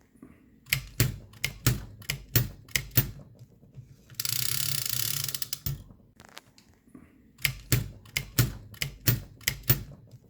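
Elliott Fisher flatbed book typewriter being typed on: two runs of sharp key-strikes, about three or four a second, with a steady mechanical rasp of about a second and a half between them as the carriage is returned for the next line.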